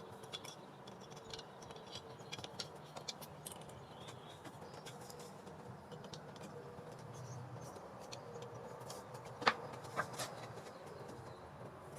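Small handling clicks from screws and a screwdriver as a doorbell mounting bracket is screwed to the wall: faint scattered clicks, with two sharper ones about nine and a half and ten seconds in.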